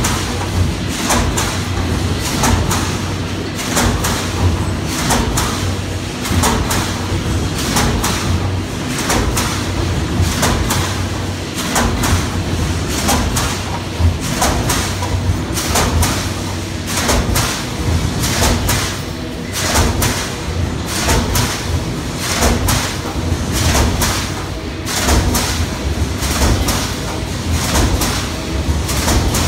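Coil feeding line running with a stamping press: a sharp metallic knock repeats roughly once a second as the steel strip is fed and stamped, over a steady low machine hum.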